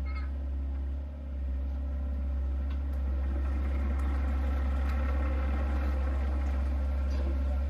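Motor vehicle engine running with a steady low hum, with a few faint ticks over it.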